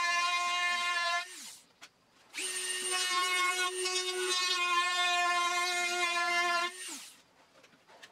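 Handheld Dremel rotary tool running with a high-pitched whine as its bit works the wooden edge of an octave mandolin body. It winds down about a second in, starts up again about a second later, runs for about four seconds and winds down again near the end.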